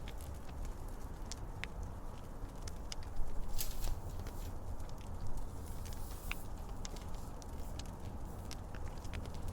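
Wood fire crackling: irregular sharp snaps and pops over a steady low rumble, with a louder flurry of crackling a little after three seconds in.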